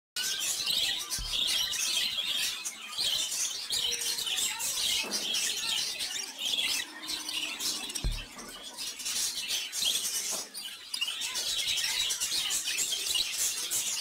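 Budgerigars chirping and chattering continuously in a dense stream of short high chirps.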